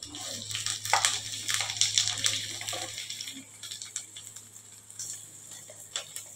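Fried vegetable pieces pushed off a steel plate with a silicone spatula into hot oil in a kadai: a steady high sizzle with a rapid, irregular clatter of pieces dropping and the spatula scraping the plate, thinning to occasional taps after about three seconds.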